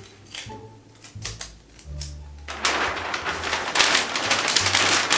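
Christmas wrapping paper being handled: a few sharp clicks and taps, then loud crinkling and rustling from about halfway in, over background music with a stepping bass line.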